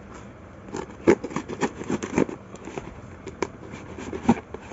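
A cardboard parcel being cut open with a knife: irregular scrapes and crackles of the blade and packing tape, with sharper clicks, the loudest about a second in.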